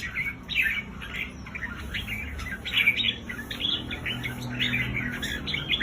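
Red-whiskered bulbul giving its excited 'rik' chatter: quick runs of short, choppy notes, several a second, that bulbul keepers play to stir up caged birds.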